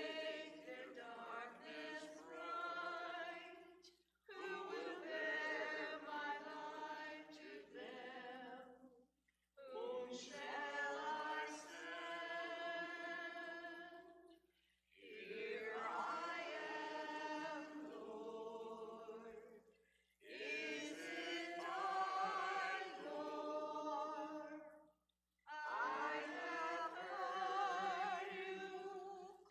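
Unaccompanied hymn singing, sung in phrases of about four to five seconds with short breaks between them.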